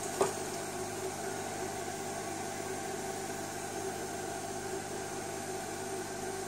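Steady background hiss and hum, with one short click just after the start.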